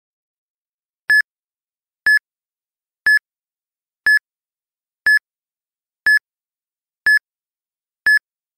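Countdown timer beeping once a second: short, identical high beeps with silence between, eight in all, ticking off the seconds of a countdown.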